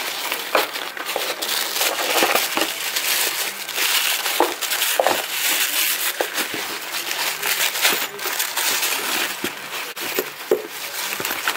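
Packing paper crinkling and rustling as it is handled and pulled out of a cardboard shipping box, with many sharp crackles.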